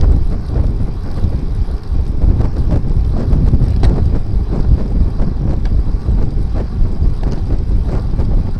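Wind buffeting the microphone of a Fly6 rear-facing bicycle camera-light while riding, a loud unsteady low rumble, with scattered faint clicks.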